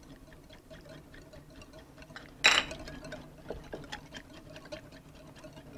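Wire whisk ticking rapidly and steadily against the side of a bowl as a sauce of wine, mustard and oil is whisked, with a louder clink about two and a half seconds in and a sharp ringing clink at the end.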